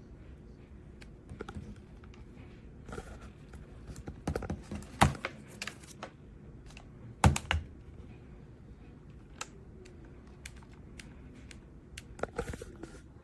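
Irregular plastic clicking and tapping from handling a HEXGAMING Phantom Pro gamepad and pressing its buttons, with two louder knocks about five and seven seconds in and a quick run of clicks near the end.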